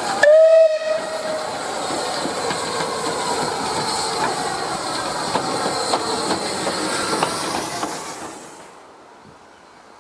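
A steam locomotive's whistle gives one short blast, followed by a steady hiss of steam from a rebuilt Bulleid Battle of Britain class pacific, 34053 Sir Keith Park, with a few metallic clanks. The sound fades away near the end.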